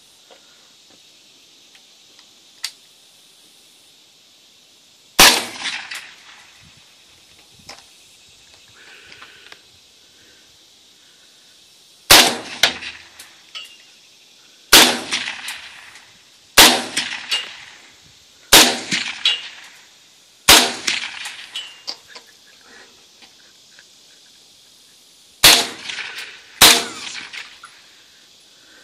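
AR-15 rifle firing single shots through an improvised oil-can suppressor: eight sharp shots, spaced unevenly one to seven seconds apart, each followed by a short echo.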